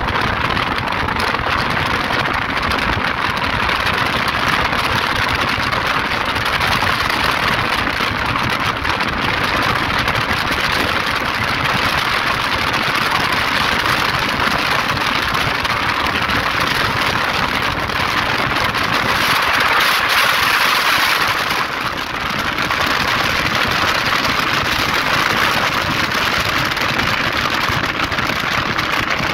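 Steady wind noise over the microphone, mixed with motorcycle engine and tyre noise at highway cruising speed.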